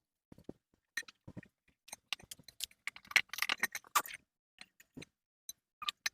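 Scattered clicks, taps and light rattling of small hard parts being handled, busiest about three to four seconds in.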